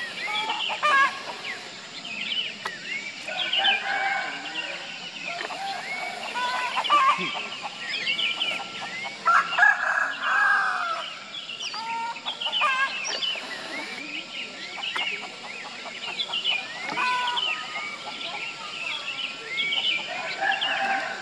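Chickens clucking, with a rooster crowing about ten seconds in, among many short bird chirps.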